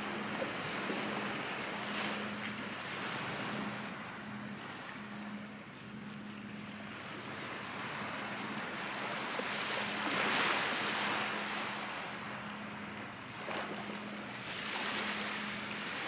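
Small waves washing onto a sandy shore, the wash rising and falling and loudest about ten seconds in, with wind on the microphone and a faint low hum underneath.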